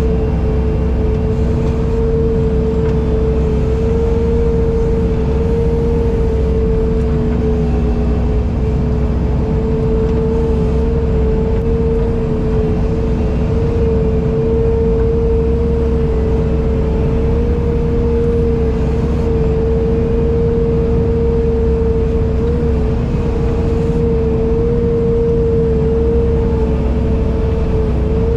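An engine running steadily at constant speed, a strong steady whine over a low rumble with no change throughout.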